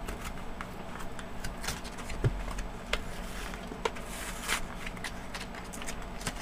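Hands unpacking a two-pack of 9-volt batteries off camera: scattered clicks, taps and short crinkling rustles of the packaging, with a soft knock about two seconds in. A faint low steady hum lies underneath.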